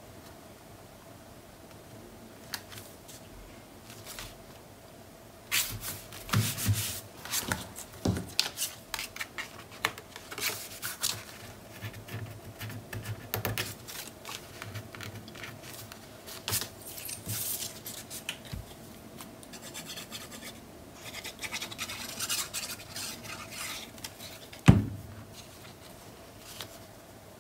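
Paper and cardstock being handled, slid and rubbed down on a cutting mat: irregular rustling and scraping with small taps, and one sharp knock near the end.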